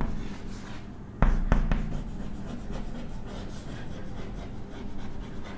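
Chalk scraping and tapping on a blackboard as a word is written by hand, with a louder sharp tap about a second in.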